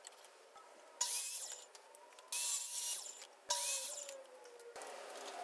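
Craftsman miter saw crosscutting thin white oak strips: three short cuts a little over a second apart, each a burst of the blade ripping through the wood, with the motor's whine falling away after the last one as the blade winds down.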